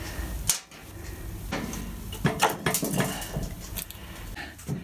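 A scatter of sharp clicks, clinks and knocks of metal parts and tools being handled, as a motorcycle's regulator rectifier is worked loose from the frame.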